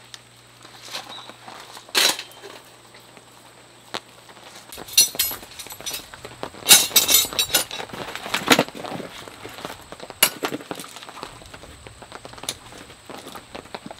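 Metal tent pegs clinking and rattling against each other in a fabric gear bag as they are rummaged, in scattered clusters with louder knocks about seven and eight and a half seconds in. A single sharp click comes about two seconds in.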